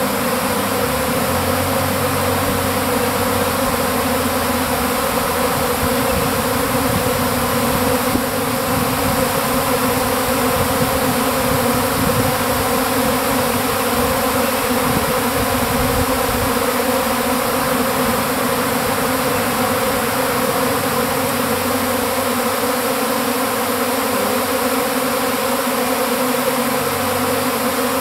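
A large swarm of honeybees buzzing around a hive entrance: a loud, steady, dense hum of many bees flying at once.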